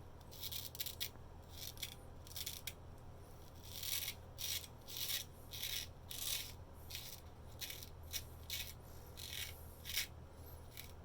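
Straight razor scraping through lathered stubble in a series of short strokes, some in quick clusters, over a steady low hum.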